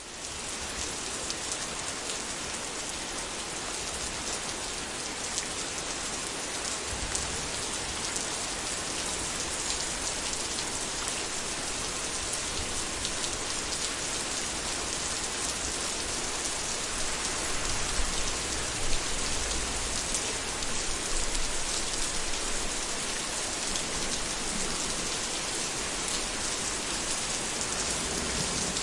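Heavy rain falling in a steady, dense hiss, fading in at the start. A few low rumbles of thunder swell under it, about seven seconds in and again around eighteen to twenty seconds.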